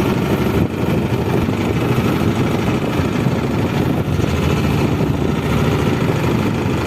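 Fishing boat's engine running steadily and loudly, an even low pulsing drone.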